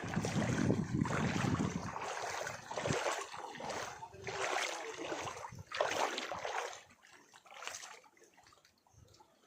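Water washing and splashing in irregular surges, with wind rumbling on the microphone for the first couple of seconds; it dies away near the end.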